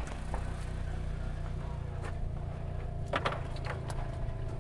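A vehicle engine running steadily with a low hum, with a few light clicks, the loudest about three seconds in.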